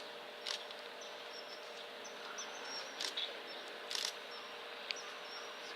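Outdoor summer ambience: a steady hiss of insects, with a few short sharp clicks and faint high chirps scattered through it.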